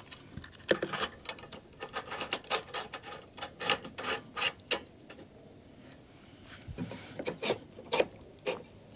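Small metal hardware, washers and bolts, clicking and tapping as it is handled and fitted onto a license plate relocation bracket: irregular light clicks, some in quick runs, with a little rubbing.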